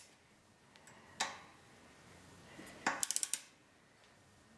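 Torque wrench working on air compressor head bolts: a sharp single click about a second in, then a quick run of five or six ratchet clicks about three seconds in.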